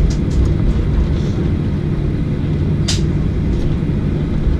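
Steady low rumble of an airliner cabin as the jet taxis at low engine power, with a few light clicks, the sharpest about three seconds in.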